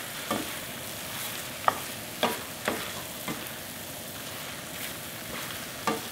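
Squid and vegetables in a spicy sauce sizzling in a hot skillet while a wooden spoon stirs them, with the potato starch mixture being worked into the sauce. The spoon knocks against the pan about six times at uneven intervals over a steady sizzle.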